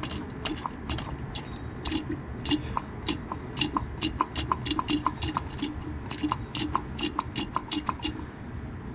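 Hand vacuum pump being stroked to suck old brake fluid out of the master cylinder reservoir through a tube: a quick, even run of clicks and small squeaks, about three strokes a second.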